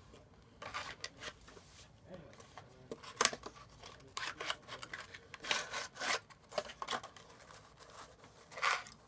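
Paper pie packaging being handled close to the microphone: a string of irregular rustling, scraping noises, the sharpest about three seconds in.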